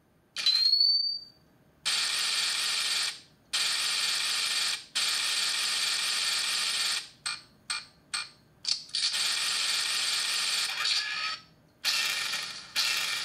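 Judge Dredd Lawgiver prop gun sound effects: a short rising electronic chirp about half a second in, then a run of rattling firing bursts. First come three long bursts of one to two seconds each, then several short single shots, then longer bursts again.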